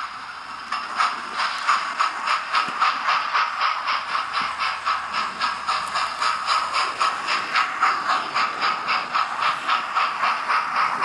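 Hornby TTS sound decoder in a OO-gauge GWR Class 4900 'Hall' steam locomotive model playing steam chuffing through the model's small onboard speaker, a steady, even beat of exhaust beats as the locomotive pulls away and runs along the track.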